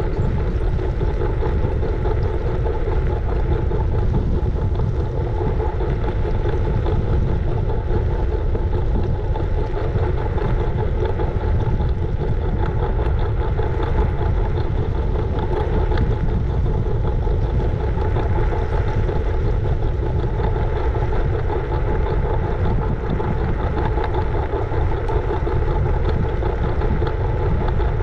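Riding noise from a scooter: a steady low rumble of wind and road noise on the action camera's microphone, with a steady hum over it.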